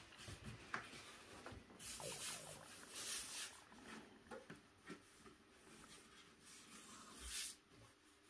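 Faint rustling and swishing of a cotton shirt being smoothed and arranged by hand on a steam press's board, with a few soft knocks; the louder swishes come about two to three seconds in and again near the end.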